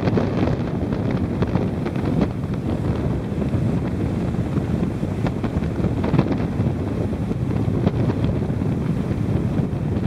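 Strong, gusty storm wind buffeting the microphone: a steady loud rumble broken by rapid crackles. The wind comes from Hurricane Sandy.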